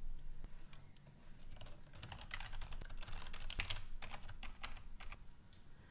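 Computer keyboard being typed on, scattered key clicks with a quick run of presses in the middle.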